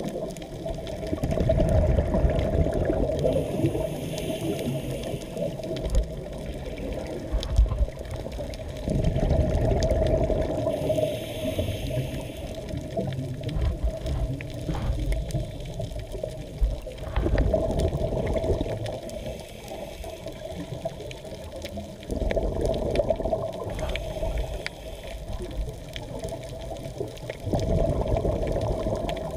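Underwater recording of a scuba diver's breathing: loud surges of exhaled bubbles every five to eight seconds, with a fainter hiss of inhalation between them. The sound is muffled through the camera's housing.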